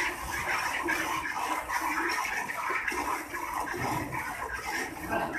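Milk squirting into a steel pail as a cow is milked by hand, a steady splashing stream.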